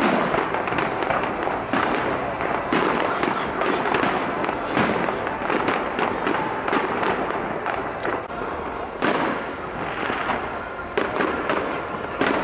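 Fireworks display: a dense, continuous barrage of aerial shells bursting, with many sharp bangs close together over steady crackling.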